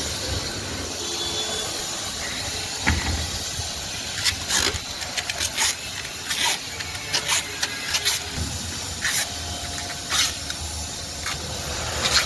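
Short, irregular metallic clinks and scrapes of a spanner tightening the mounting nuts of an AC outdoor unit on its wall stand, over a steady low background rumble.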